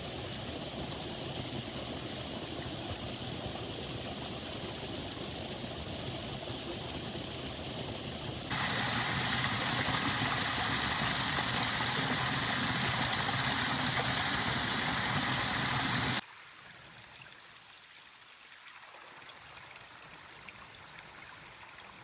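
Small waterfall and creek running: a steady rush of water that turns suddenly louder and brighter about eight seconds in, then drops abruptly to a much fainter, thinner hiss about sixteen seconds in.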